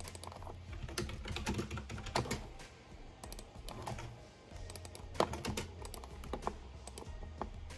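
Typing on a computer keyboard: quick, irregular key clicks in short runs, over background music.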